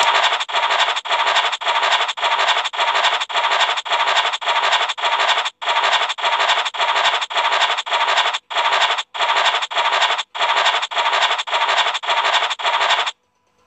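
Scratch-off sound effect of the FDJ Illiko 'Cash' online scratch-card game: a short rasping scrape repeated about two times a second, one for each number uncovered, with a few brief pauses, stopping suddenly near the end.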